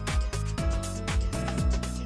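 Background music with a steady electronic beat: a kick drum about three times a second, with a hi-hat and sustained synth tones.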